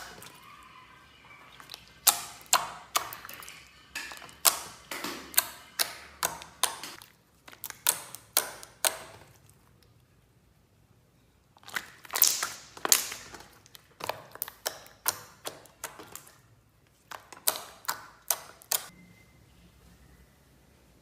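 Slime being squeezed and poked, giving sharp sticky pops and clicks in quick runs, with a pause of about two seconds near the middle.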